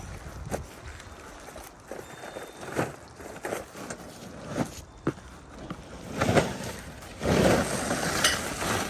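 Scattered knocks and clicks as someone moves about handling greenhouse kit parts and their packaging, with louder rustling about six seconds in and again toward the end.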